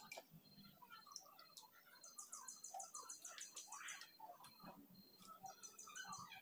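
Near silence: faint room tone, with a faint rapid trill of high chirps, about seven a second, starting about two seconds in and lasting about two seconds, and a shorter trill near the end.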